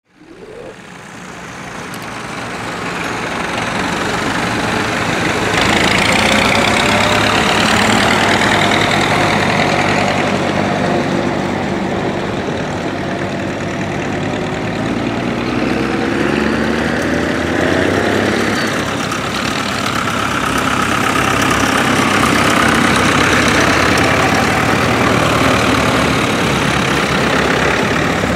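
Engines of several tractors running as they drive past one after another, fading in over the first few seconds, with the engine pitch rising and falling as each one passes.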